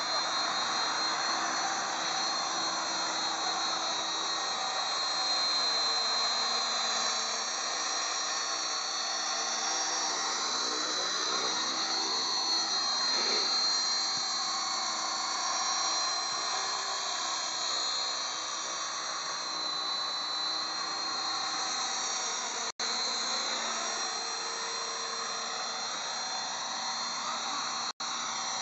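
Electric motor and rotor of a Spark 435M micro radio-controlled helicopter in flight: a steady high-pitched whine over the whir of the blades, its pitch gliding up and down as the helicopter moves about. The sound cuts out for an instant twice in the last few seconds.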